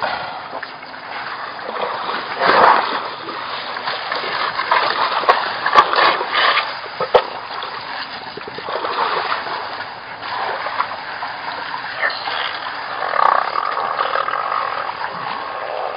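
African elephants splashing in shallow water and mud: irregular splashes and wet slaps, the sharpest few between about two and seven seconds in.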